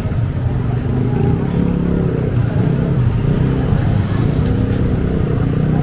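A motor vehicle engine running steadily with a low, even hum, over general street noise.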